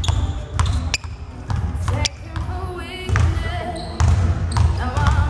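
Basketball dribbled on a hardwood gym floor: repeated sharp bounces at an uneven pace, with people talking over them.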